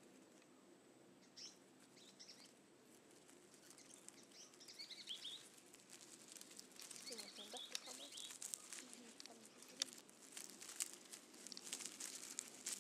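Faint bird chirps, and from about four seconds in, dry leaves crackling and rustling, busier toward the end.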